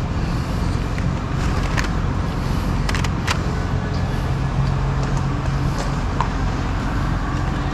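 Steady low rumble with a constant hum and a few faint clicks.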